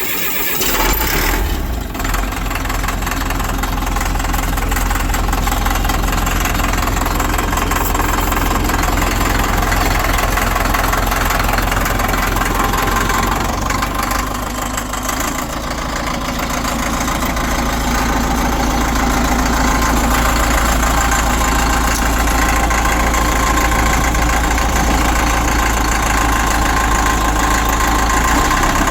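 Caterpillar 950 wheel loader's diesel engine running with a clattering knock, just fired up after sitting about 15 years. It dips briefly about halfway through, then runs on steadily.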